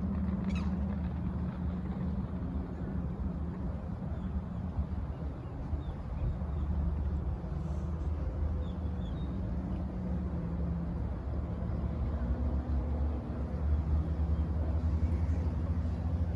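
A steady low mechanical drone, like an engine or motor running, with a few faint short high chirps about eight to nine seconds in.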